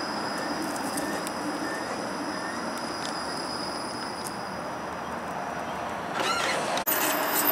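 A Toronto Flexity Outlook low-floor streetcar rolls slowly along the loop track, giving a steady running noise. A short wavering squeal comes about six seconds in. Near the end the sound breaks off abruptly into louder street and vehicle noise.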